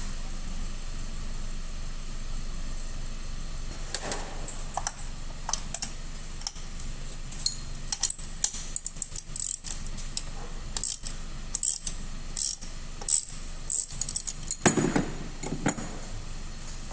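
Irregular light metallic clinks and rattles of tools or small metal parts being handled, starting about four seconds in and coming thicker toward the end, over a steady low hum.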